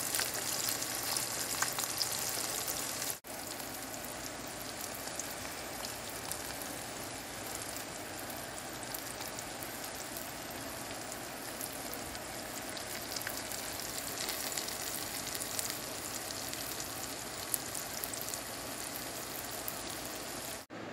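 Eggs frying in a nonstick pan: a steady sizzle with small crackles. It drops out for an instant about three seconds in, then carries on a little quieter.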